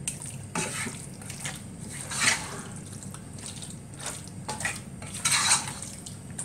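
Wooden spatula stirring chicken pieces through thick, wet masala gravy in a non-stick pot: irregular stirring and scraping strokes, the loudest about two seconds in and again around five seconds.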